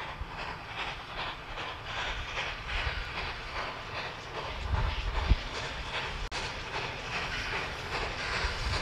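Small steam tank locomotive working a passenger train, its exhaust chuffing in an even rhythm of about three beats a second over a low running rumble. A single sharp knock stands out about five seconds in, and the sound cuts out for an instant just after six seconds.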